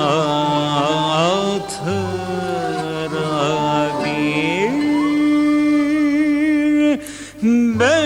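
A man singing a Turkish folk song in a richly ornamented style, with wavering turns on each phrase. About halfway through he holds one long steady note, breaks off briefly near the end, and then starts the next phrase.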